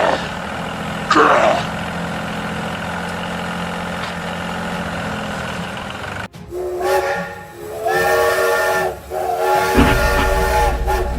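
A steady low motor hum, then after a sudden cut a loud horn sounding a chord of several steady tones in long blasts with short breaks.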